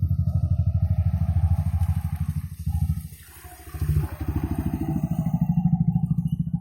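Yamaha R15 V3's single-cylinder four-stroke engine running hard under load as the motorcycle struggles through mud. The engine note dips briefly about three seconds in, then picks up again.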